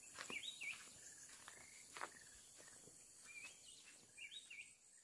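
Faint forest ambience: a steady high insect drone, a bird calling short whistled phrases near the start and again near the end, and soft footsteps on a dirt path.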